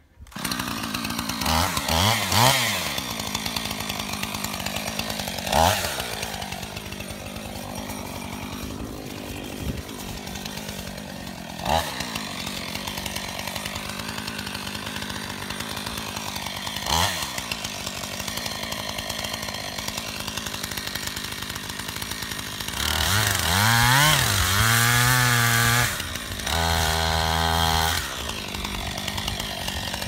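Gas chainsaw running at idle, blipped up to brief revs four times, then held at full throttle for two stretches of a few seconds near the end as it cuts into a tree trunk.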